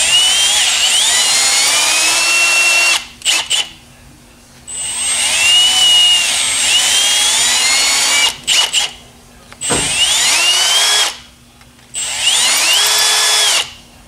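Cordless drill spinning a drill bit inside the slide-pin bores of a brake caliper bracket, cleaning the corrosion out of them. It runs in four stretches of one to three seconds with short pauses and brief blips between, its whine rising and falling as the trigger is worked.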